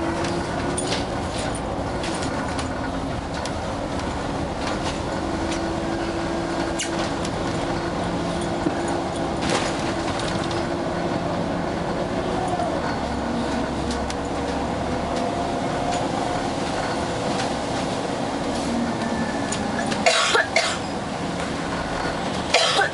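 Bus running along the road, heard from inside the cabin: steady engine and road noise with small rattles throughout, and a few louder knocks and rattles near the end.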